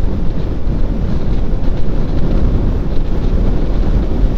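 Loud wind buffeting a motorcycle rider's helmet microphone while riding, a steady low rumble.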